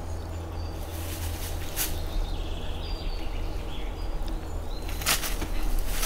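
Steady low rumble with two brief rustling swishes, about two and five seconds in, and a few faint high chirps.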